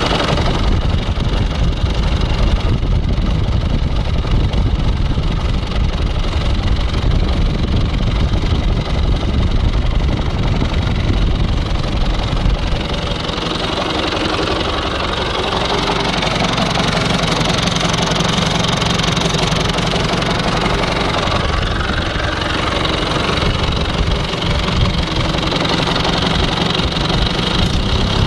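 John Deere 2130 tractor engine running with an intermittent rapid knocking and nailing, more a machine-gun rattle than a heavy thump, coming from the fan end of the engine. The knock does not change with load or PTO engagement, is worse once the engine is well warmed up, and oil pressure is good. The engine note changes about halfway through.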